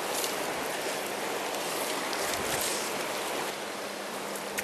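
Steady rush of a fast-flowing river running over shallow riffles.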